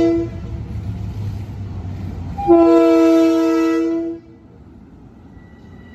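Train horn sounding: the tail of a short blast just as it begins, then a loud, steady blast of about a second and a half. A low rumble of the passing train runs under the first part and drops away as the long blast starts.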